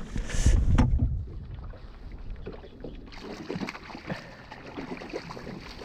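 Water lapping against a small boat's hull, with wind buffeting the microphone, loudest in the first second and quieter after, with a few small knocks.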